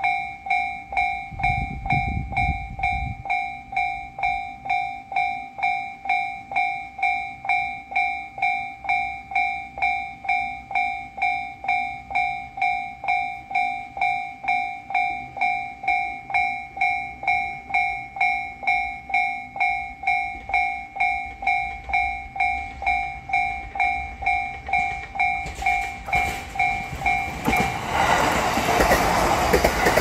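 Japanese level-crossing electronic warning bell ringing steadily, a little over two strikes a second. In the last few seconds a JR East E129 series electric train approaches and runs past the crossing, its wheel and running noise growing loud over the bell; a brief low rumble sounds about two seconds in.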